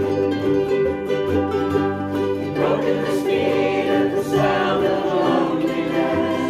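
Many ukuleles strumming chords together, backed by a cello and an acoustic guitar, with a group of voices singing along through the middle.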